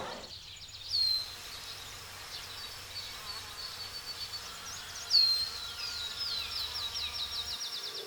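A small songbird singing: two loud, sharp phrases about a second in and about five seconds in, the second running into a quick series of short descending notes.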